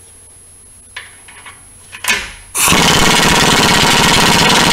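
Pneumatic air hammer (air chisel) hammering rapidly and continuously, starting about two and a half seconds in after a few light knocks, used to break loose a seized, rusted exhaust nut and stud at the catalytic converter.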